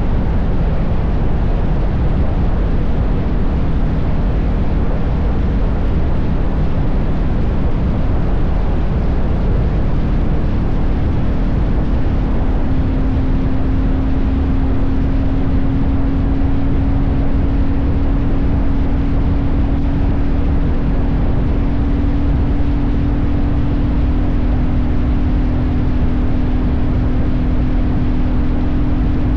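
Royal Enfield Meteor 350's single-cylinder engine running steadily at highway cruising speed, mixed with heavy wind rush on the bike-mounted microphone. The engine's hum climbs slightly in pitch about ten seconds in and then holds.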